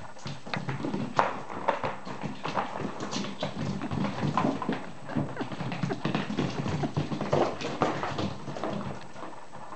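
Whippet puppies scampering and wrestling on a hard floor: rapid, irregular clicking and pattering of paws and claws, with scuffling. It settles down just before the end.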